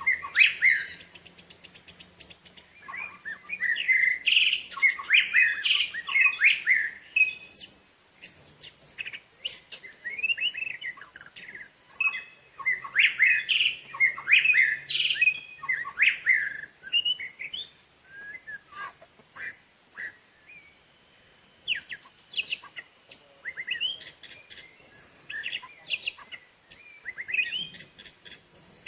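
White-rumped shama singing in bursts of quick, varied whistled phrases that sweep up and down, with short gaps between them. A steady high-pitched hiss runs underneath.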